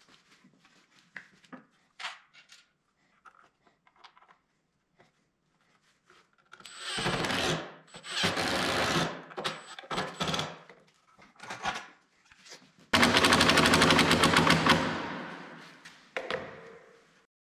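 Makita 18V cordless impact driver driving screws into a wooden frame joint. After a few seconds of faint handling clicks it runs in short bursts from about seven seconds in, then a longer, loudest run about thirteen seconds in with a fast rattle of impacts that fades away.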